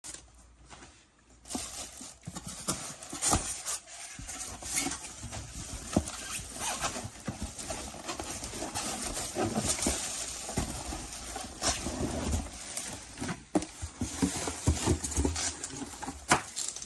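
Packaging being handled: irregular rustling and crinkling of plastic wrap and bubble wrap, with scattered knocks of cardboard and polystyrene foam as an air fryer is lifted out of its box. It starts about a second and a half in.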